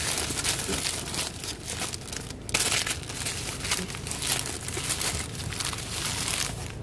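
Paper sandwich wrapper crinkling and rustling with many quick crackles as hands unwrap a sub sandwich.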